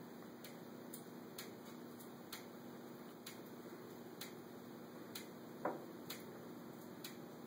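Ceiling fan running, with a low steady hum and a sharp tick a little less than once a second, as something on the fan clicks on each turn. One louder knock about two-thirds of the way in.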